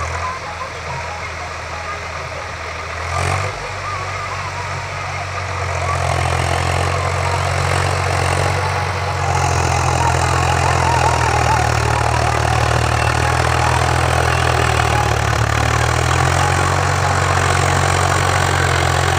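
Tractor's diesel engine running steadily under load while it pulls a rotavator to sow wheat in the field. The engine hum grows louder about six seconds in and again near ten seconds as the tractor comes closer.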